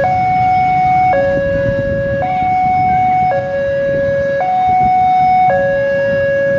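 Railway level crossing warning alarm sounding its two-tone signal, switching between a higher and a lower tone about once a second, as the crossing closes for an approaching train. A low rumble runs underneath.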